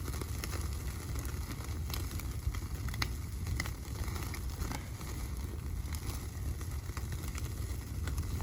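Steady low wind rumble on the microphone, with scattered crackles and clicks throughout.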